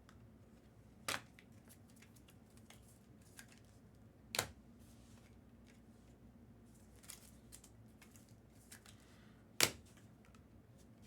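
Quiet handling of trading cards and packs: faint rustles and light clicks, with three sharper snaps spread across the stretch.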